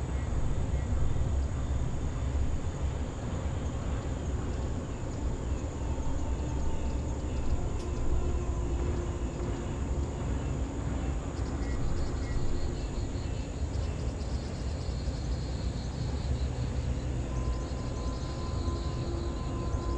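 Outdoor ambience dominated by a steady low rumble of distant traffic. Faint high chirps come in about halfway through.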